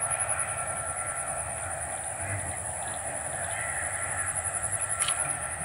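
Birds calling over a steady, finely pulsing high-pitched insect drone, with a single sharp click about five seconds in.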